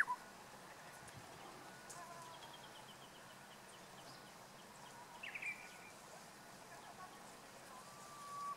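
Japanese bush warbler singing: the tail of one song right at the start, a short burst of sharp gliding notes about five seconds in, and a long, steady low whistle swelling near the end that opens the next 'hoo-hokekyo' phrase. The song is an unpolished one, which the uploader wonders is a badly sung attempt.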